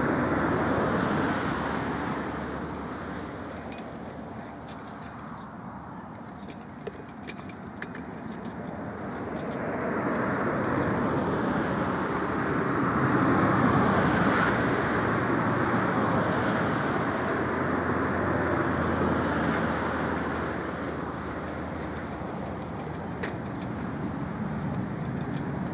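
Road traffic passing: long swells of tyre and engine noise that rise and fade as vehicles go by, with a few faint ticks about two-thirds of the way through.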